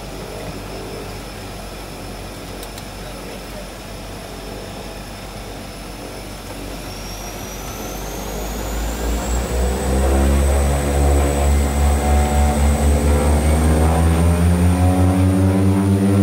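De Havilland Canada DHC-6-300 Twin Otter's two Pratt & Whitney PT6A-27 turboprops, heard from inside the cockpit. They run steadily, then about seven seconds in they spool up to takeoff power as the throttles are pushed forward. The turbine whine rises in pitch and the propeller drone climbs and grows louder, pulsing regularly.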